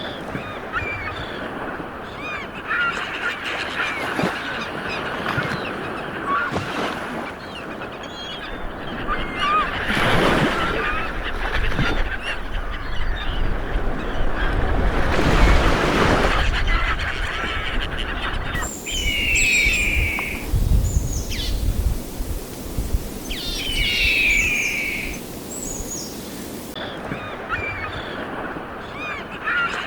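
Many birds calling over a rushing background noise, with louder swells of the noise about a third and half way in. The sound changes abruptly past the middle, where two loud bursts of bird calls stand out, then the first mix returns near the end.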